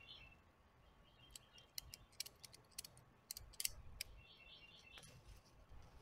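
Faint, irregular clicks, about eight of them in the middle few seconds, as a ratchet strap is handled and its webbing fed through the ratchet. Faint bird chirps sound behind them.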